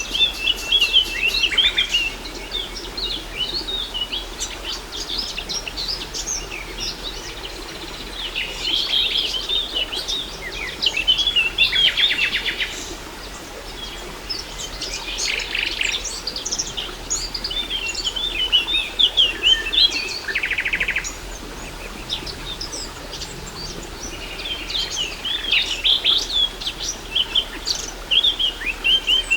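Several wild birds chirping and singing in a dense overlapping chorus, with a few rapid buzzing trills among the calls. Underneath runs a faint, steady rush of falling water from a waterfall.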